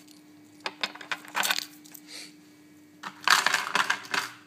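Small hard polymer clay charms clicking and clattering as they are handled and set down: a few light clicks about a second in, then a busier rattle of knocks about three seconds in.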